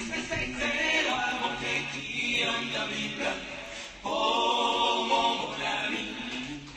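Choir singing as intro music, voices in harmony on sustained phrases, with a new held chord swelling in about four seconds in.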